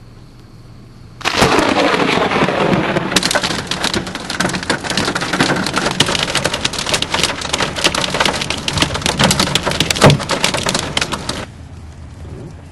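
Hail hammering a car, heard from inside: a dense clatter of stones striking the roof and windscreen over the noise of heavy rain. It starts suddenly about a second in, has one louder crack about ten seconds in, and stops abruptly near the end.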